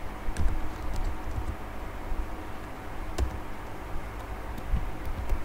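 A few slow keystrokes on a computer keyboard: scattered single clicks about a second apart, over a steady low rumble.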